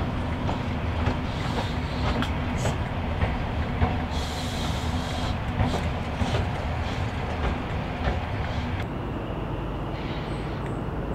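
Diesel High Speed Train with Class 43 power cars passing along the line, a steady engine note with scattered clicks from the wheels on the track and a brief hiss about four seconds in. About nine seconds in the sound changes abruptly to a quieter, lower train rumble.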